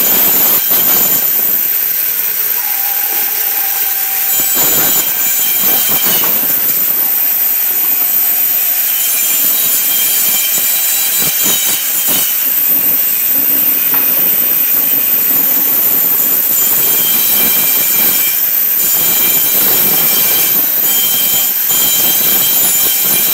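Pallet-dismantling band saw running with a loud, steady, high whine and hiss as its blade saws through the nails between pallet boards. A few brief knocks come through, the loudest about a second in, near 5 s, near 12 s and near 18 s.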